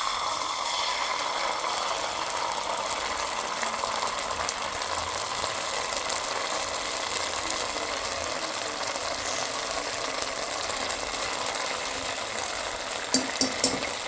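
Vegetables and sauces sizzling steadily in a hot pan as Schezwan fried rice cooks, with a few quick clicks near the end, typical of a spatula against the pan.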